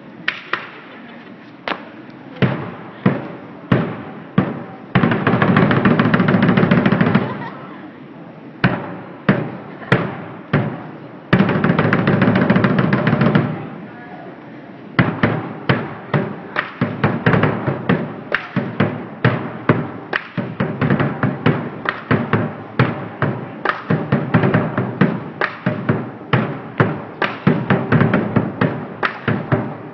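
Lion dance percussion: a drum struck with crashing cymbals, in scattered beats at first with two loud rolls of a couple of seconds each, then settling into a steady quick beat about halfway through.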